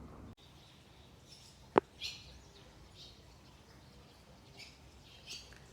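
A bird chirping in short high calls, about one a second, with a single sharp click about two seconds in.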